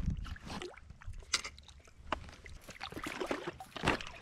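A hooked skipjack herring splashing and thrashing at the water's surface near the bank as it is reeled in, with scattered sharp clicks and a low rumble of wind on the microphone.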